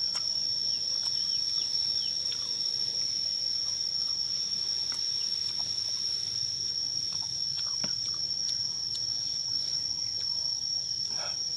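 Insects making a steady, high-pitched drone. A few faint clicks and mouth sounds come from someone pulling apart and chewing soft jackfruit pods.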